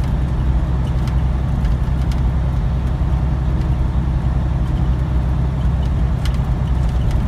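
Semi truck's diesel engine running steadily at highway speed, with a low drone and tyre and road noise heard from inside the cab.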